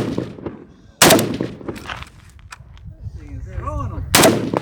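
Two gunshots in a shooting-match course of fire, one about a second in and one just after four seconds, each sharp with a short echo trailing off.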